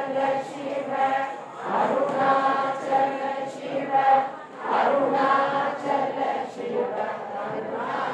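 Group of voices chanting Vedic hymns together in unison, in phrases of held notes with short breaks between them.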